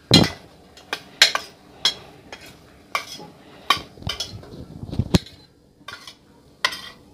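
Metal spoon clinking and scraping against a steel bowl as boiled eggs are stirred with spices, in a string of irregular sharp clinks.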